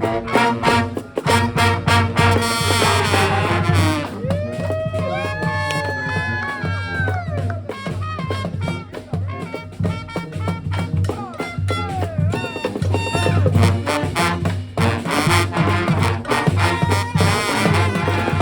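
Brass band playing live: horns over a steady drum beat. About four seconds in, the horns hold long notes that bend up and down, then go back to quicker phrases.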